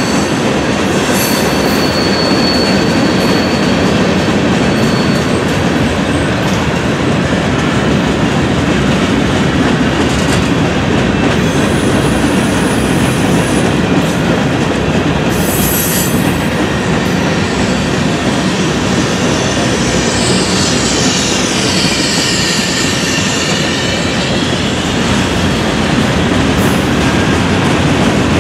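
Freight train cars rolling past close by: a steady loud rumble of steel wheels on the rails, with high wheel squeals coming and going and a falling squeal about two-thirds of the way through.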